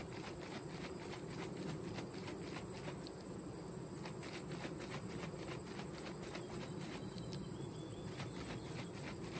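A Varroa Easy Check jar of winter windshield washer fluid and bees being shaken by hand for an alcohol mite wash, the liquid sloshing in quick, regular strokes several times a second. Under it is a steady low hum of honey bees from the open hive.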